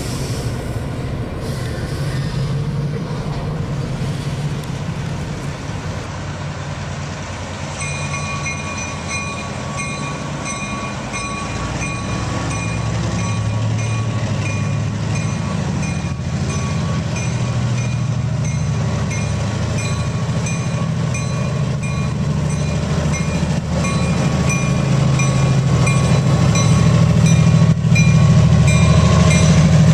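HO scale model diesel locomotives running with a freight train, a steady low rumble, with a repeated ringing tone joining about eight seconds in. The sound grows louder near the end as the train comes toward the camera.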